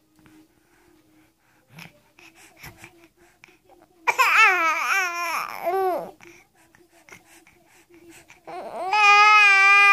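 A baby vocalizing: a loud babble with a pitch that wavers up and down about four seconds in, then a long, steady held vocal sound starting near the end.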